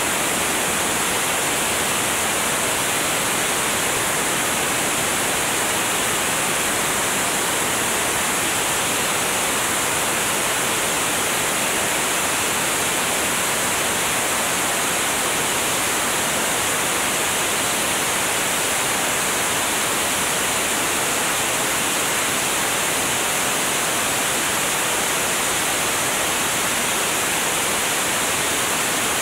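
Steady rush of airflow over a wing-mounted camera's microphone in flight, an even roar with no distinct engine note standing out.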